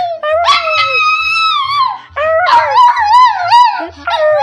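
Small terrier-type dog howling: one long held howl, then after a short break a run of shorter, wavering howls. Background music with a steady bass line plays underneath.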